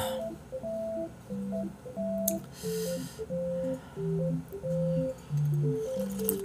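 Background music: a simple melody of plain, held electronic tones, one note after another. A brief hiss about two and a half seconds in.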